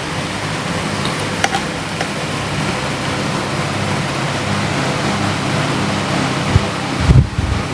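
Steady hiss with a low hum, broken by a few short, dull thumps near the end.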